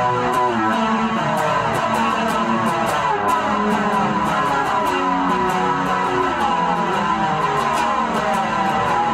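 A six-string guitar played without a break: a busy, steady run of picked and strummed notes moving up and down in pitch.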